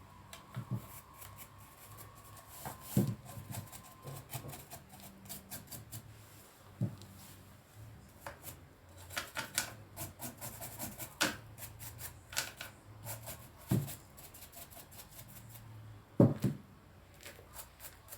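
Irregular light clicks, taps and short scratchy rubs from hands working on a small garden ornament, with a sharper knock near the end. A faint low hum runs underneath.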